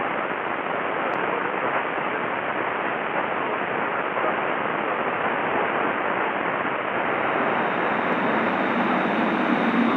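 Steady, even static from the amateur radio receiver with no signal on the channel: the ISS downlink has dropped out.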